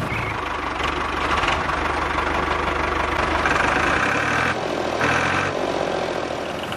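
Tractor-style engine running steadily, its note changing about four seconds in.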